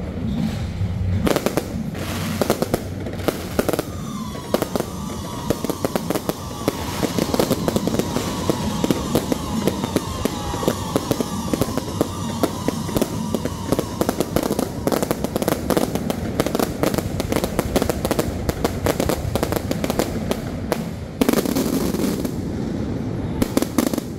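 An electrically fired fireworks barrage: a dense, continuous rattle of bangs and crackles, with a whistling tone gliding slowly downward through the middle.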